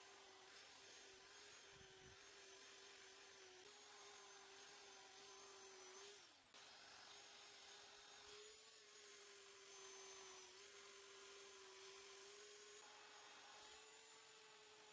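Faint, steady high whine of a small handheld electric power tool running as it works the wood, its pitch wavering slightly. It dips briefly about six seconds in.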